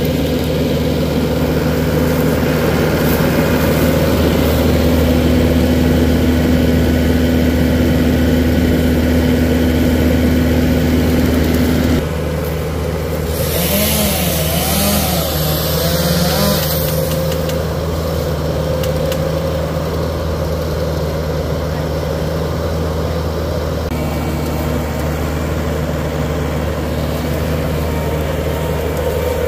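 A Bobcat heavy-equipment diesel engine running steadily. Its sound changes abruptly about twelve seconds in, and a few seconds of hiss follow shortly after.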